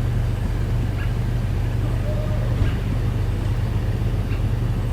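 A steady low hum under an even hiss, with a faint brief tone about two seconds in.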